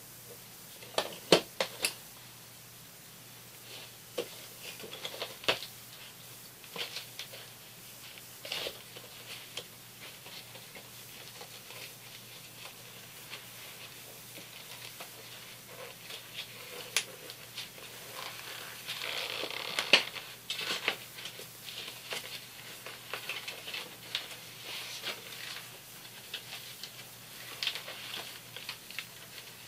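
Sharp clicks and snaps of a hand tool working at the edge of an old car seat cover, with scraping and rustling as the cover is worked loose and pulled off the seat frame. A cluster of clicks comes about a second in, and the scraping and rustling are densest about two-thirds of the way through.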